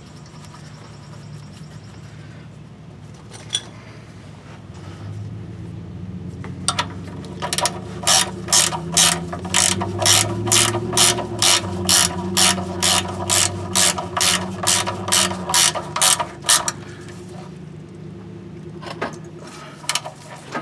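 Socket ratchet clicking as the oil drain plug of a Ford Expedition is screwed back in and tightened. A run of evenly spaced clicks, about three a second, starts about seven seconds in and stops about ten seconds later.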